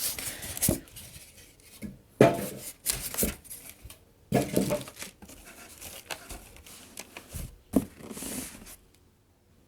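Packaging being handled and torn open: irregular rustling, crackling and tearing, loudest a little over two seconds in and again around four and a half seconds, dying down near the end.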